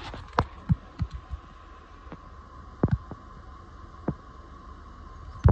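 Irregular dull knocks and bumps from a handheld camera being moved around inside a pickup cab. Several come in quick succession in the first second and a half, a double knock near the middle, and the loudest near the end, over a steady faint hum.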